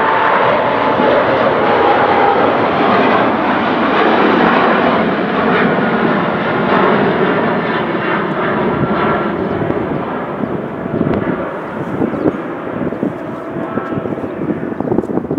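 A loud passing engine roar with a slightly falling pitch near the start, fading over the last few seconds.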